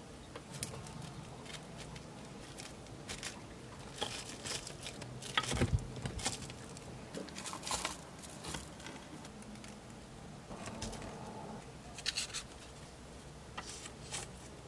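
Close-up handling of glass jars: plastic wrap crinkling over the jar mouths, metal screw-top lids clicking on, and scattered light taps and rustles. The loudest is a knock about five and a half seconds in.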